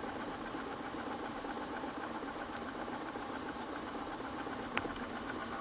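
Motorcycle engine running steadily at low revs, with one sharp click near the end.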